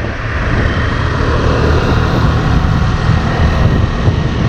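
Motorcycle running at road speed, heard as a steady, loud rush of engine drone and wind noise on the microphone.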